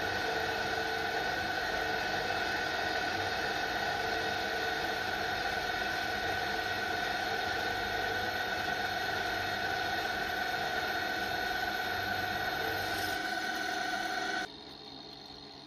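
Bench mill-drill running steadily with several steady tones as a long 4 mm drill is fed slowly down into a cast iron block. The running sound stops abruptly about 14 seconds in, leaving a faint hum.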